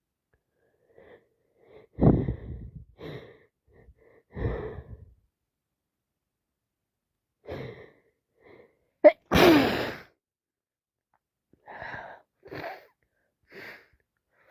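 A person with a heavy head cold sneezing, with short sniffs and catching breaths before and after. The loudest sneeze comes about nine and a half seconds in, a sharp catch followed by a forceful burst.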